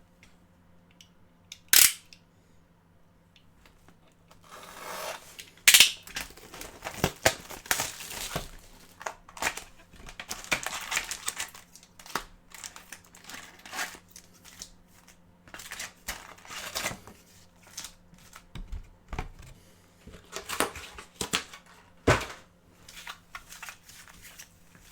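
Trading card pack wrappers being torn open and crinkled: irregular crackling and rustling that starts about four seconds in, after a single sharp click about two seconds in.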